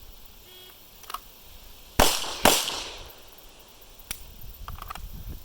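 Two pistol shots from a 9mm Beretta 92 fired one-handed, in quick succession about half a second apart, each with a short echoing tail.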